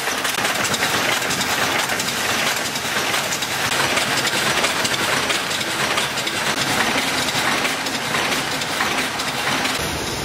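Tinplate can-body forming and welding machine running at speed: a loud, dense, steady metallic clatter. Near the end it gives way to a smoother hiss with more low rumble.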